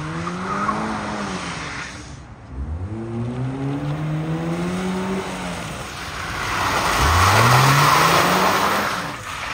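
Chevrolet Cobalt coupe's engine revving up three times as the car slides around on wet asphalt, each rev climbing and then holding. Near the end the car passes close and tyre noise from skidding on the wet pavement is the loudest sound.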